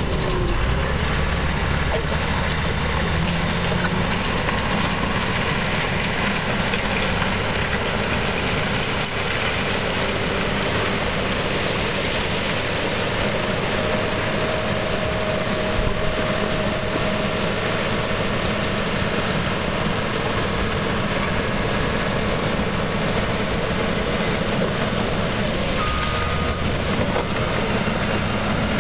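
Caterpillar D5G crawler dozer working, its diesel engine running steadily under load while the steel tracks move and the blade pushes into gravel. A thin whine comes in for a few seconds partway through.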